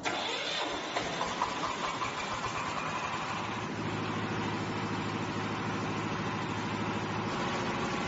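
Single-cylinder diesel engine of a concrete mixer's generator set being started: it cranks and catches about a second in, then settles into a steady idle from about four seconds in.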